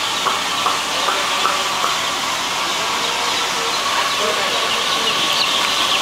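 Dense, unbroken chorus of peeping from a large flock of day-old chicks, many high short cheeps overlapping, over a steady hiss.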